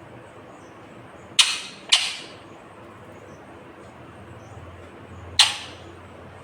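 Ringneck parrot giving three short, harsh screeches: two close together about a second and a half in, and one more near the end.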